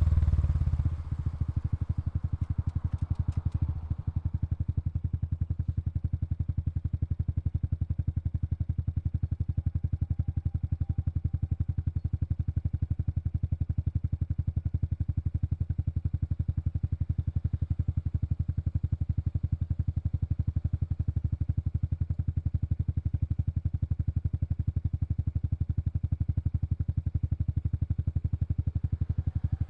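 Honda Super Cub 110 Pro's air-cooled single-cylinder four-stroke engine dropping back from a rev about a second in, then idling steadily with an even beat of exhaust pulses.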